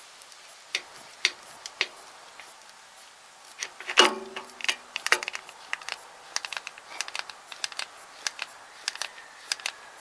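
Pistol-grip grease gun with a needle-nose adapter clicking over and over as its lever is pumped, forcing grease into a backhoe pivot-pin fitting. There is a louder brief squeak about four seconds in.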